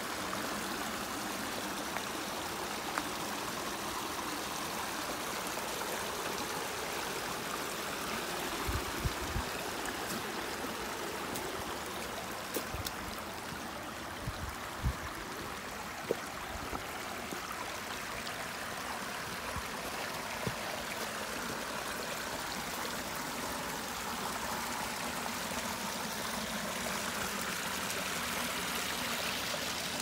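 Small mountain brook babbling over rocks: a steady rushing and trickling of water. A few faint thumps come through around the middle.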